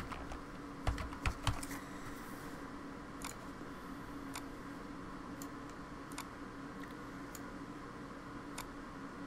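Computer keyboard being typed on, a short run of a few keystrokes about a second in, followed by occasional single clicks spaced a second or more apart, over a steady faint hum.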